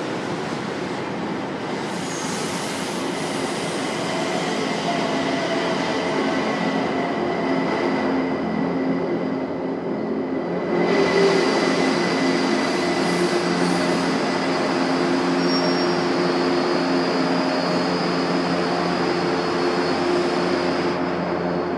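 São Paulo Metro Line 1 train running into an underground station platform and braking to a stop. A dense rumble of wheels on rail carries several steady whining tones, and it is loudest from about halfway through as the cars pass close by.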